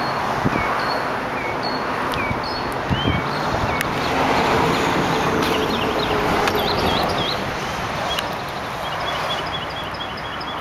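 A songbird singing, repeating short chirping phrases over a steady background hiss, ending in a quick run of short notes. A few soft thuds of footsteps and handling.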